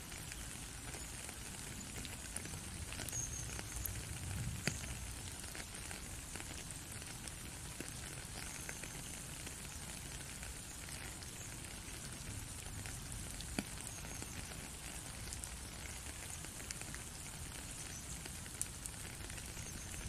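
Light rain falling: a steady hiss of rain with scattered sharp drop ticks, a few of them louder.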